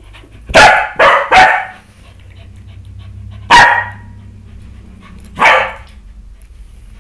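Pembroke Welsh corgi barking: a quick run of three barks, then two single barks about two seconds apart.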